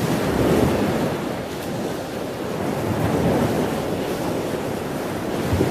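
Ocean surf: waves washing in as a steady rush that swells and eases a few times.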